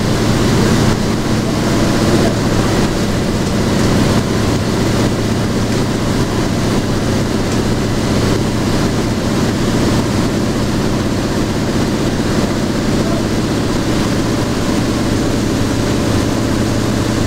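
Antonov An-2 in flight, heard from inside the cabin: its nine-cylinder radial engine drones loud and steady, with no change in pitch.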